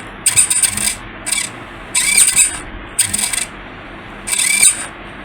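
A 20 kg hobby servo motor swinging a lever that squeezes an Ambu bag, whirring in short strokes of about half a second, roughly once a second, each with a brief rising whine.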